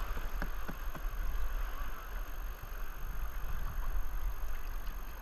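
River water rushing past a whitewater kayak, with the paddle blade splashing into the water a few times.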